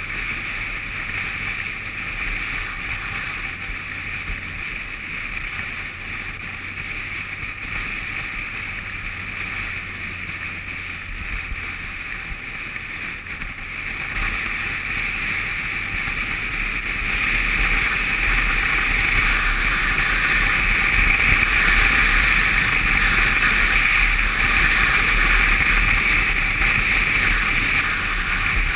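Wind rushing over the microphone of a camera mounted on a moving adventure motorcycle, with the motorcycle's engine running low underneath. The rush grows louder about halfway through.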